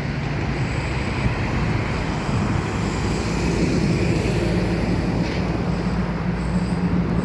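City street vehicle noise: a passing vehicle's steady running hum, growing louder from about two seconds in.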